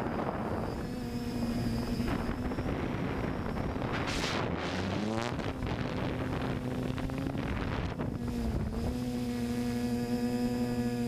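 FPV quadcopter's electric motors and propellers whining steadily, heard from the onboard camera, with wind buffeting the microphone. About four seconds in a gust of wind noise swells and the whine dips and climbs again with the throttle, and it dips briefly once more near the end.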